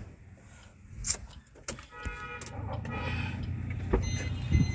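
Street traffic: a motor vehicle running close by with a low steady rumble, and a brief steady pitched tone about two seconds in, with a few short knocks near the end.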